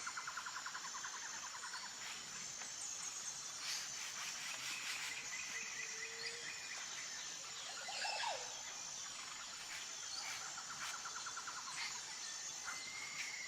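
Outdoor nature ambience: insects keep up a steady high pulsing while several birds chirp, whistle and give rapid trills.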